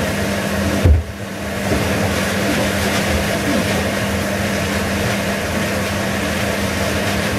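Steak sizzling in a frying pan over a steady low hum. There is a single low thump about a second in.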